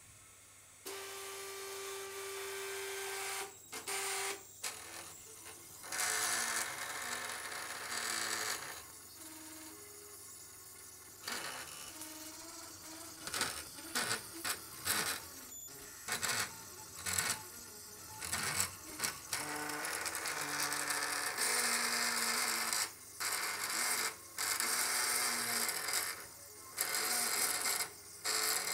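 Stepper motor driven by a TB6560 driver moving a gutted printer's print-head carriage along its rail. It whines at a steady pitch that jumps to new pitches as the speed changes, starting and stopping over and over, with clicks and rattling noise from the mechanism in between.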